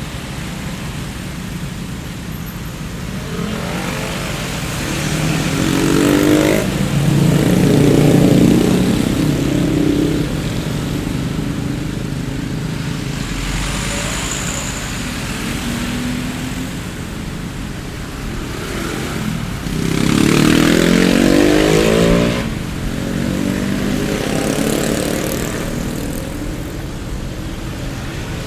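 Road traffic ambience: a steady rumble of motor traffic with vehicles driving past, the engine pitch rising and falling as they go by. Two louder passes stand out, one a few seconds in and another about two-thirds of the way through.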